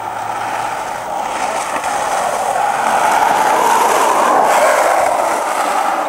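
Skateboard wheels rolling on asphalt, a steady rumble that grows louder as the board nears, peaks about four seconds in, then eases slightly.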